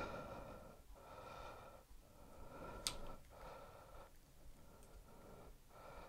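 Soft breathing close to the microphone, in swells about a second long, with one sharp click about three seconds in as a crimp tool and insulated spade terminal are handled.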